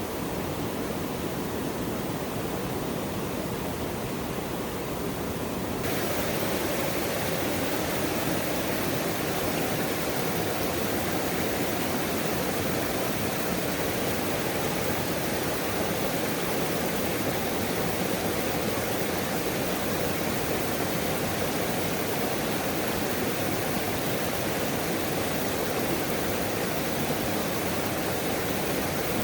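Waterfall rushing steadily, an even hiss of falling water. About six seconds in, it abruptly becomes brighter and slightly louder.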